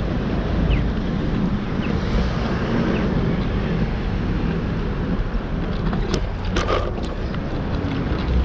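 Wind buffeting the microphone over the steady rumble of city street traffic, with a few short clicks a little past the middle.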